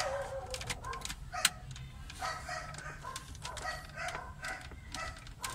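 Chickens clucking and calling in the background in a run of short repeated calls. Sharp clicks of hard plastic dash trim being handled and pressed into place come through as well, the loudest about a second and a half in.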